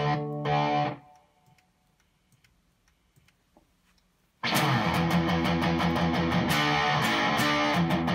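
Electric guitar chords that stop about a second in, followed by about three seconds of near silence; then strummed electric guitar starts abruptly about four and a half seconds in and keeps going.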